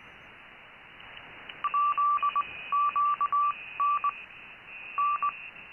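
Morse code (CW) from an amateur station on the 40-metre band, received on a remote KiwiSDR through a narrow CW filter: a single keyed tone beeping in dots and dashes over band hiss, starting about a second and a half in. A fainter digital-mode signal tone sits above it.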